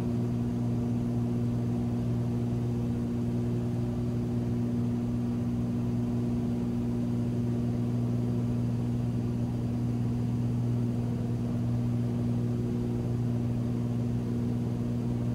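Cessna Turbo 206's turbocharged six-cylinder engine and propeller at takeoff power during the climb just after lift-off, a steady drone heard inside the cabin, unchanging in pitch.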